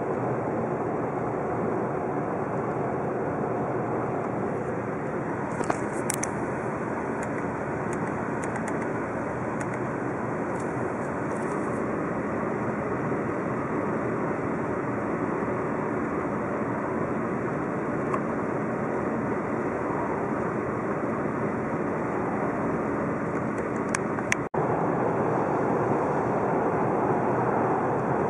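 Steady in-cabin drone of tyre and engine noise from an Audi A4 2.0 TDI Avant, its four-cylinder diesel turning over lightly while cruising at 80 km/h in sixth gear. There are a few faint clicks early on. Near the end the sound cuts out for an instant and returns slightly louder at 100 km/h.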